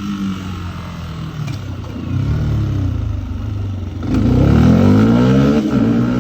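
Fantic XMF 125's single-cylinder four-stroke engine on the road: the engine note sinks as it eases off, then rises hard from about four seconds in as the bike accelerates, with a short dip near the end, like a gear change, before it climbs again.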